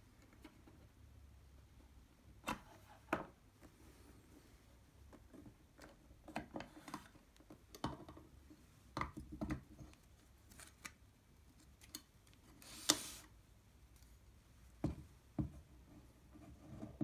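Metal terminal enclosure being opened by hand and its front panel, with keyboard and circuit boards attached, lifted out: scattered light clicks and knocks of the metal parts being handled, with a short scrape about three-quarters of the way through.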